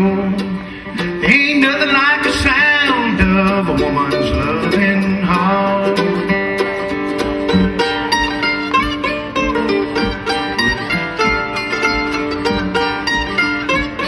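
Live acoustic country-bluegrass band of mandolin and two acoustic guitars playing. A man sings over the first half, then the strings carry on alone in an instrumental passage.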